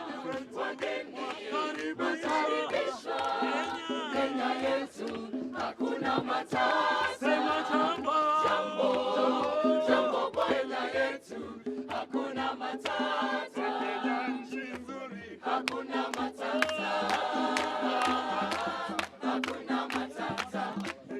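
A group of voices singing together in a choir over a steady, regular drumbeat.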